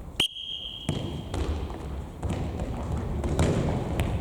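A whistle blown once, a steady shrill note lasting about a second, then the thuds of a futsal ball being played on a hard indoor court, echoing in a sports hall.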